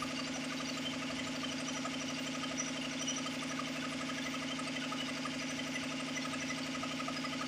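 5 hp electric air compressor running steadily, a steady hum with a fast, even pulsing from its piston pump.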